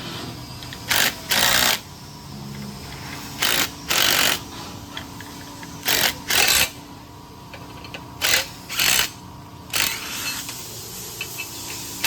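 A power driver turning the two jacking screws that push a plate off a hydroseeder gear pump, run in about nine short bursts, mostly in pairs.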